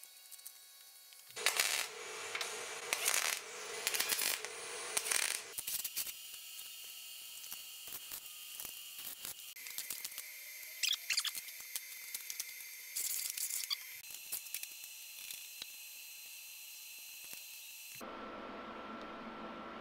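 Light metallic clinks, taps and knocks of steel parts, shims and hand tools being handled and fitted on a steel workbench. The sound comes in short pieces that cut abruptly from one to the next about every four seconds, each with a different steady background tone.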